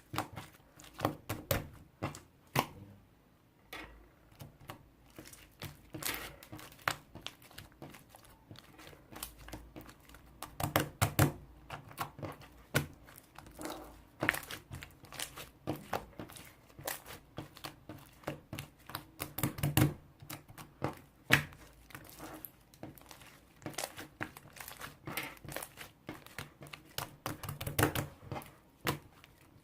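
Irregular crinkling and rustling with many small sharp clicks and taps, as of objects being handled close by.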